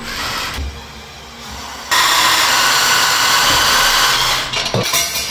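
Electric winch motor running under load as it reels in its wire rope to hoist a heavy auger: a steady motor noise that cuts in sharply about two seconds in and runs for about two and a half seconds before dying away.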